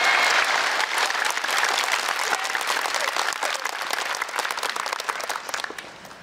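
Large audience applauding, many hands clapping together, the applause slowly dying away toward the end.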